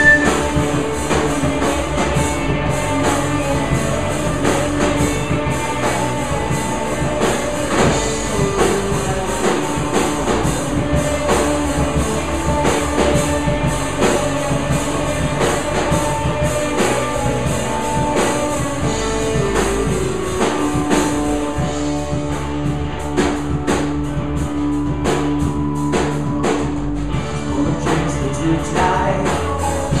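Live rock band playing: electric guitars, bass guitar and a drum kit.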